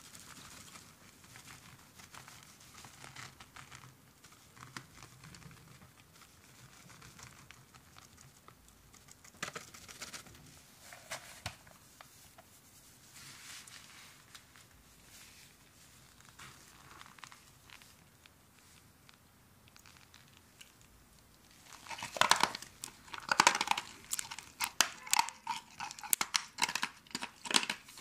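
Ice ball coated in cornstarch being pressed and crushed into loose cornstarch. There is faint soft rustling at first, then, about three-quarters of the way through, a run of loud, sharp crackling and crunching as the powder packs and the ice breaks.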